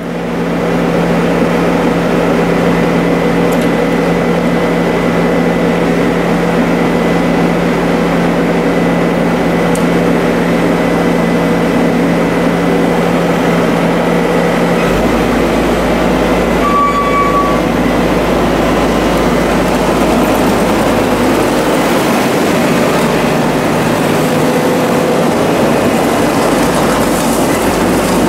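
Engine of heavy tree-clearing machinery running steadily at a constant pitch; the low drone changes about halfway through as the load shifts.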